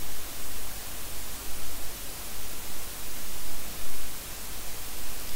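Steady hiss with a low rumble underneath: the background noise of a home microphone, with no other sound.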